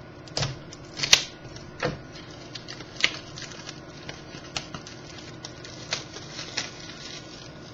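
Trading-card box and packaging being handled and opened by hand: an irregular string of sharp clicks and crinkles, the loudest in the first three seconds.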